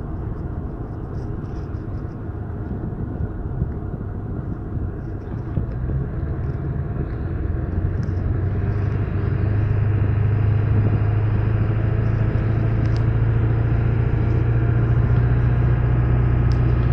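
Ford 7.3 Powerstroke turbo-diesel V8 pulling about 10,000 lb up a steep grade: a steady low engine drone that grows louder about five seconds in and again about nine seconds in, then holds.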